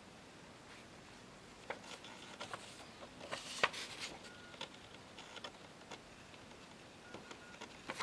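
Handwritten paper index cards being handled and swapped: quiet paper rustles and scattered small clicks, the loudest a little over halfway through.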